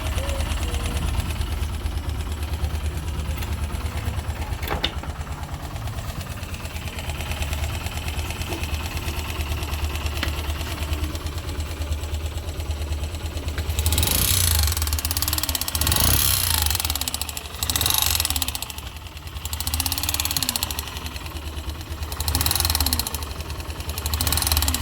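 Yamaha YB engine running at idle with a steady rapid mechanical beat: the engine noise its owner is showing as a fault. From about halfway it is revved several times, each rev swelling and falling back.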